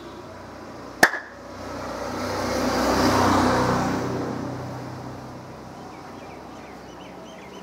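A motor vehicle passing on the road, its engine and tyre noise swelling to a peak and fading away over about four seconds. A single sharp knock sounds about a second in, before the vehicle is heard, and faint bird chirps come near the end.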